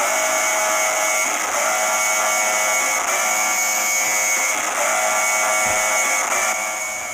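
Emergency alert system alarm tone: a loud, buzzy chord of several held tones, briefly interrupted about every second and a half, easing off slightly near the end.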